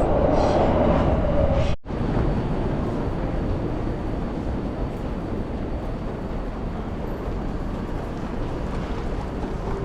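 Tokyo Metro Ginza Line subway train running, a steady rumble with a tone in it. About two seconds in the sound cuts out for an instant, and after that the rumble is steadier and a little quieter.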